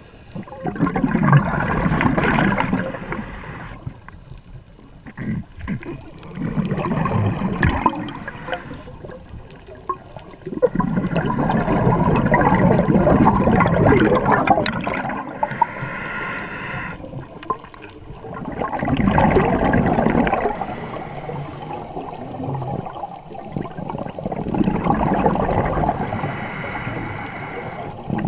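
A scuba diver's exhaled breath bubbling out of the regulator, heard underwater: several long rushing, gurgling bursts of bubbles every few seconds, the longest about ten seconds in, with quieter gaps between breaths.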